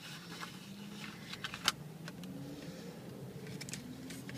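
Faint handling noise from a small cardboard and plastic package being gone through: a few light clicks and taps, the sharpest about one and a half seconds in, over a faint low hum.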